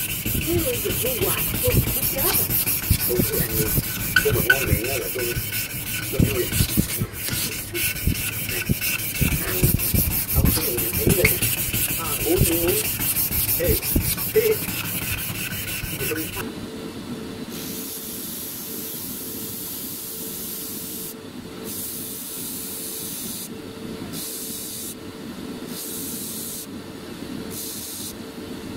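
A strip of abrasive cloth pulled rapidly back and forth around a wooden table tennis racket handle, shoe-shine style, giving fast rasping strokes with short squeaks. About halfway through it changes to an electric disc sander running with a steady hum, the hiss of wood against the disc breaking off several times as the piece is lifted away.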